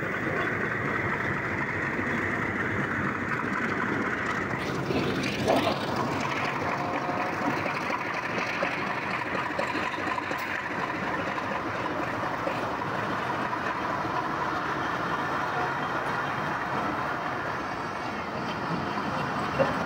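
A passenger train passing close by on the adjacent track. Its diesel locomotive goes by first, then its coaches roll past with steady wheel-and-rail noise.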